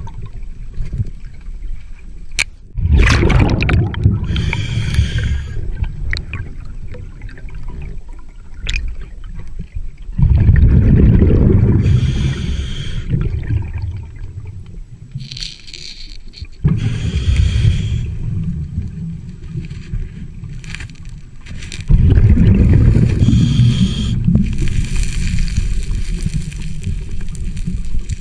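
Scuba diver breathing underwater through a regulator: about four slow breath cycles, each a hiss of air followed by a long, loud rumble of exhaled bubbles, with a few sharp clicks between them.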